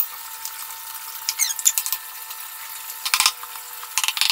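Scraping of a fish scaler over a fish's scales, followed by a cleaver chopping through the fish onto a wooden chopping block in two heavy strikes about a second apart.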